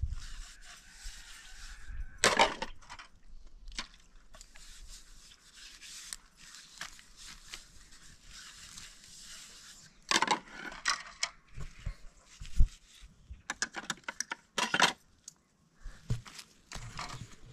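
Dishes being washed by hand: a plate scrubbed and rubbed, with scattered clinks and scrapes of plates and bowls against each other and a few louder clatters.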